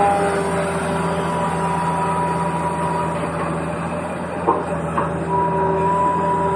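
A steady mechanical hum carrying several held tones, broken by two short clicks about halfway through.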